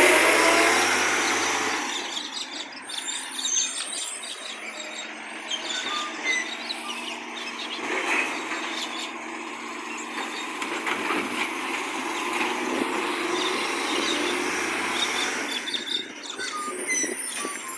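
Recycling garbage truck running with an exhaust leak. The sound is loud for the first two seconds and then settles to a steadier, lower noise with scattered light clinks and knocks.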